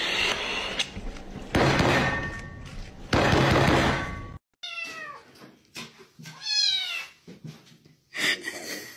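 Two loud bursts of rushing noise in the first half, then a cat meowing, with two or three long calls that slide down in pitch.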